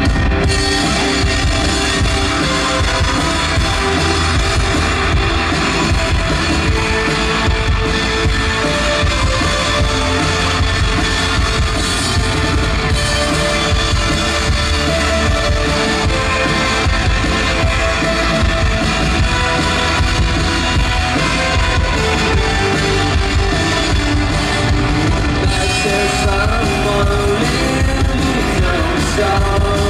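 Loud live rock band music, with an electric guitar and a drum kit playing, recorded from the audience.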